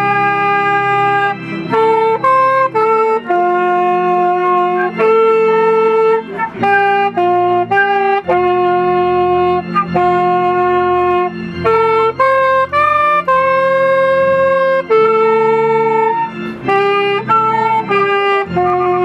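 Instrumental music: a saxophone plays a slow melody of long held notes, changing pitch every second or two, over a soft, steady low backing.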